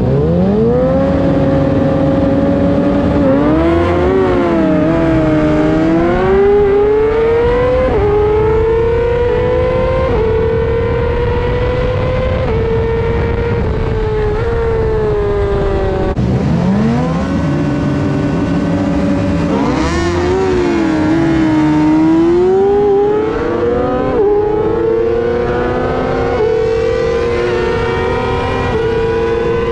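Yamaha R6 race bike's inline-four engine running hard under acceleration from a race start, the pitch climbing and then dropping sharply at each upshift, with wind rush on the onboard microphone. About halfway through, the revs fall abruptly and a similar climb through the gears starts again.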